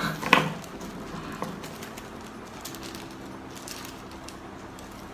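A dove coos repeatedly in a low, steady voice in the background. A few sharp crinkles and clicks come from a plastic parcel mailer being handled and opened in the first second and a half.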